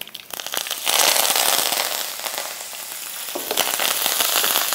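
Fresh curry leaves spluttering and crackling in hot oil with mustard seeds, dried red chillies, cumin and fennel: a tadka (tempering). Scattered crackles give way about a second in to a loud sizzle, which eases in the middle and swells again near the end as the pan is stirred.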